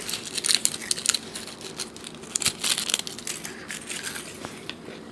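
Crinkling of a Ferrero Rocher's gold foil wrapper being peeled, mixed with crunching bites into the chocolate's wafer shell: a close, irregular run of crackles and clicks.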